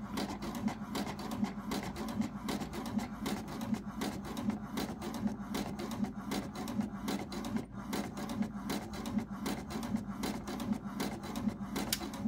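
HP DeskJet 2600 series inkjet printer printing a page: quick, regular clicking over a steady low hum as the sheet feeds out.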